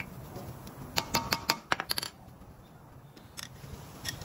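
Sharp metallic clicks and clinks of a screwdriver working the small retaining screw on a brake rotor's hat: a quick run of about eight clicks about a second in, then two single clicks near the end.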